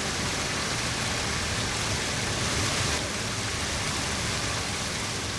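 Water of a shallow stream running over stones and pebbles: a steady rushing noise that eases slightly about three seconds in.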